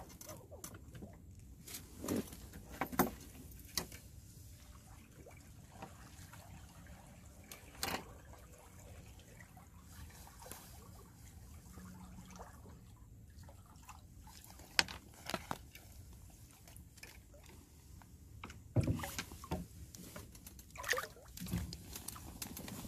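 Small water sounds with scattered faint knocks and clicks over a quiet background, a handful of them spread out and bunched toward the end.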